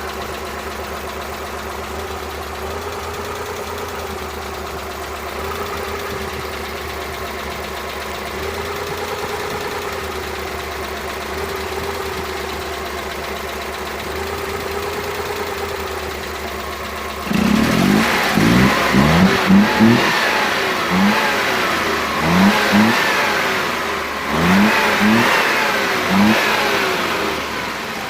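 Suzuki F6A three-cylinder engine idling, then revved in a series of quick throttle blips from about two-thirds of the way in. It is running with a random misfire that a new spark plug has not cured.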